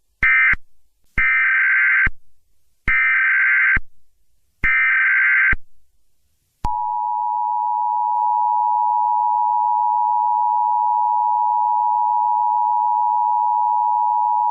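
Emergency Alert System tones. First comes a short SAME data burst, the end-of-message code. Then three longer SAME header data bursts, each about a second long and about a second apart, sound as a shrill warbling screech. About seven seconds in, the steady two-tone EAS attention signal starts and holds at an even level.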